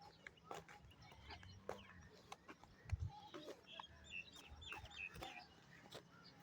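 Faint chicken clucking, with a quick run of short bird chirps about four seconds in and scattered small clicks. There is a low thump about three seconds in.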